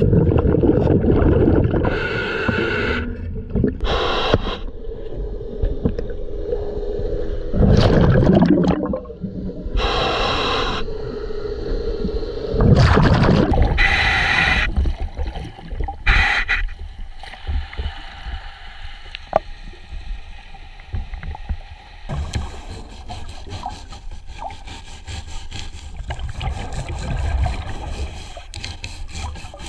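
Underwater sound of a diver cleaning a boat hull: scraping and gurgling bubbles in irregular bursts, louder in the first half and quieter from a little past halfway.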